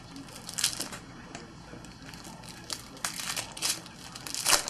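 Foil wrapper of a Topps Chrome trading-card pack being torn open and crinkled by hand, in several crackly bursts, the loudest near the end.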